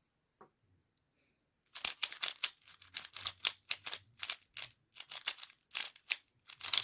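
QiYi Valk 3 M magnetic 3x3 speedcube being turned by hand: quick, irregular clacks of its layers, several a second, starting about two seconds in after near silence.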